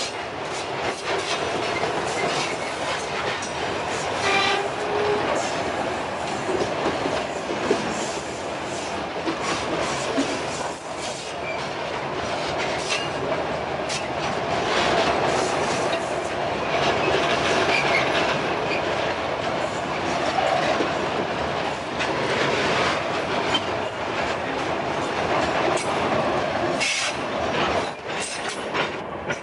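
Freight train wagons rolling past, their wheels clicking over the rail joints with a continuous rumble and rattle.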